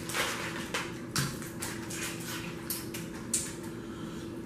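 Boiled crawfish being picked from a foil pan and peeled by hand: irregular small crackles and clicks of shells snapping and crawfish shifting in the pile, over a steady hum.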